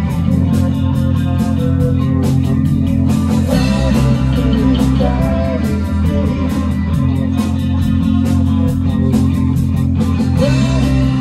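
Rock band playing live: electric guitar playing a lead line with bent, wavering notes over sustained low chords, with a steady beat of sharp strokes.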